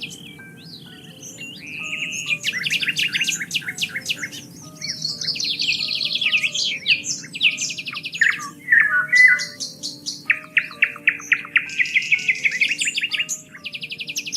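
Songbirds singing in quick succession: rapid trills and chirping phrases, several birds overlapping. Faint sustained background music runs underneath.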